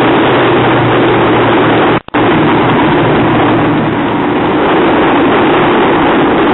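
Loud, steady rush of wind and spray on the microphone over the drone of an RNLI Atlantic 85 lifeboat's twin outboard engines as the rigid inflatable runs through rough water. The sound cuts out for a split second about two seconds in.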